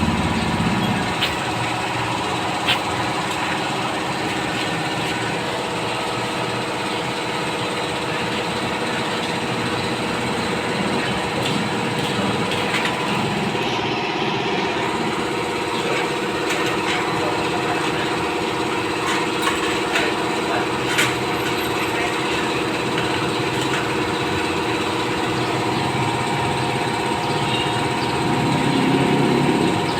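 Bajaj CT150's single-cylinder four-stroke engine running steadily at an even speed after its overhaul.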